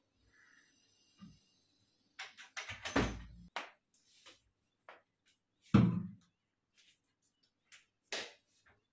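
A window being closed by hand: a run of knocks and scraping from the frame and latch about two seconds in, a single loud thump near six seconds, and a short knock near the end.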